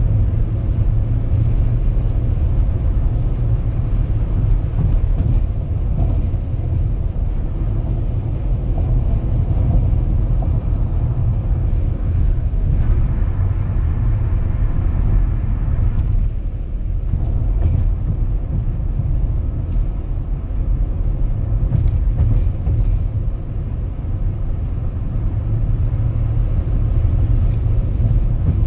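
Steady low rumble of a car in motion at road speed, engine and tyre noise heard from inside the cabin.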